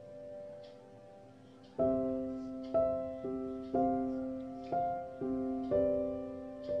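Background music: slow, soft melodic notes, a new one struck about once a second and fading after each, quieter for the first two seconds.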